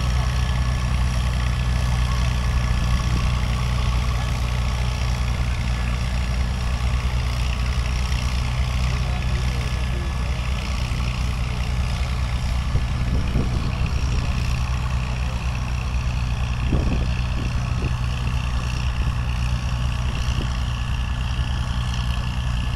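Antique farm tractor's engine pulling a weight-transfer sled under load, a steady, even low drone.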